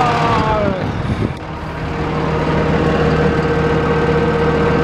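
Ford F650 rollback truck's engine idling with a steady hum; a whine falls in pitch during the first second.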